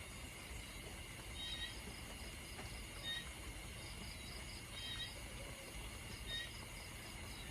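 Steady light rain at night, with short high chirping calls repeating about every one and a half seconds over a faint fast trill.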